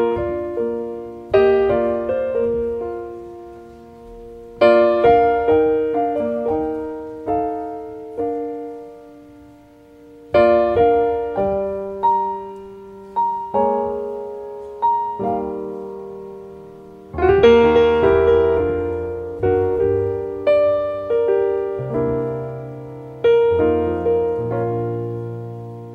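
Slow solo piano introduction to a song: chords struck one after another every second or two, each left to ring and fade, with deeper bass notes coming in about two-thirds of the way through.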